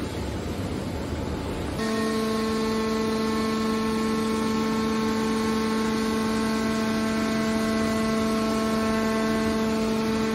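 Scrap steel baler's hydraulic power unit running. A steady machine noise gives way, about two seconds in, to a loud, steady pitched hum that holds unchanged.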